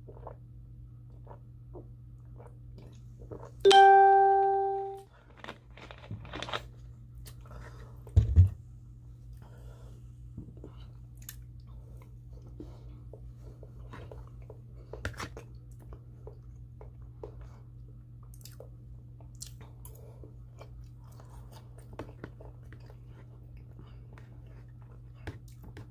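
One person chewing and crunching food close to the microphone, with small wet clicks throughout over a steady low electrical hum. About four seconds in, a loud ringing ding sounds once and fades over about a second, and a few seconds later comes a short dull thump.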